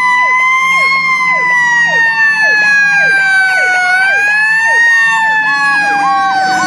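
Fire engine siren on a slow wail, rising and falling, with a faster yelping sweep repeating two or three times a second alongside it. The truck's engine rumbles underneath, and the wail's pitch falls toward the end.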